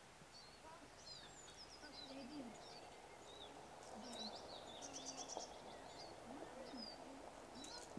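Faint outdoor birdsong: many short chirps and whistles from small birds, with a rapid trill just past halfway, over a low steady background hush.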